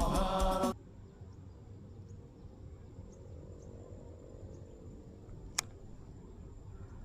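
Background music cuts off just under a second in. Faint outdoor ambience follows, with a steady high-pitched insect drone like crickets and one sharp click about five and a half seconds in.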